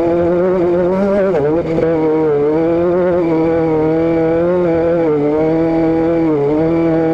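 Vehicle engine running at a steady speed, a constant droning note with a brief dip in pitch and level about one and a half seconds in and a smaller one near the end.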